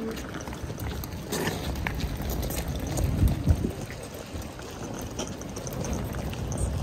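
Outdoor city ambience: a low steady rumble, with footsteps and the wheels of rolling suitcases clattering over paving stones and a few scattered knocks.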